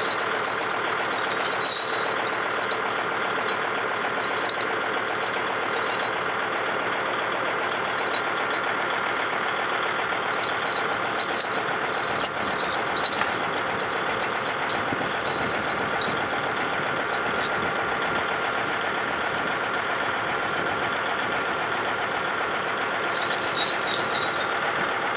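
Kubota tractor's diesel engine idling steadily, with several short bursts of light metallic clinking from tire chains being handled, about a second in, around the middle and near the end.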